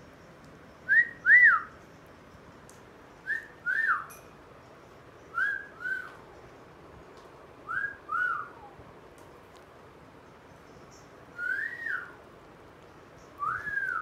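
Clear two-note whistle, each note rising then falling, repeated six times about every two seconds with a longer pause before the fifth.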